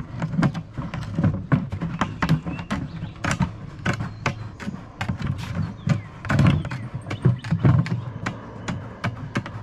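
Hand shears snipping through a plastic bucket lid to cut a circular hole: a run of short, sharp crunching snips, about two or three a second and irregular, with the lid flexing and knocking under the hand.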